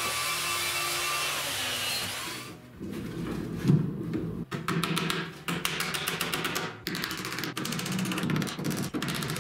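Handheld belt sander running on plywood, a steady noise that stops a little over two seconds in. After that, background music with a beat over a run of light, irregular knocks.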